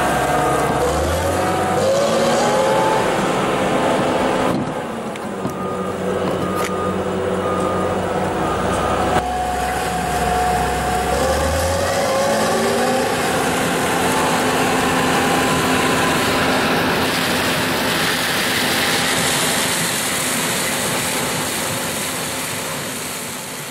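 A John Deere combine harvester's engine running and working, with its pitch rising and falling as the revs change. The sound changes abruptly a few times and fades out near the end.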